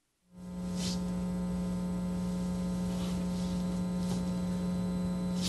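Steady electrical mains hum from the room's audio feed, cutting in suddenly out of silence about a third of a second in, with a few faint rustles over it.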